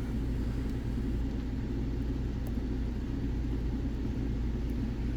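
Steady low background rumble with a constant hum, over which a few faint light clicks sound from a pick and tensioner working the pins of a five-pin cabinet lock.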